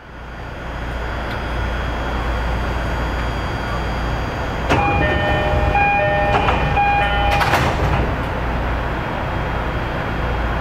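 Steady low rumble and hum inside a train. About halfway in, an electronic chime of short high tones at a few different pitches plays for about three seconds, opening with a knock and ending with a thud.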